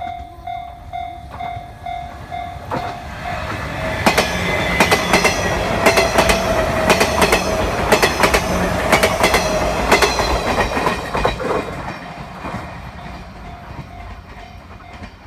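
A level-crossing alarm dings at about two strokes a second while a JR 719-series electric train passes over the crossing, loudest for several seconds in the middle. Its wheels clack over the rail joints. The train fades away near the end, leaving the crossing bell still ringing.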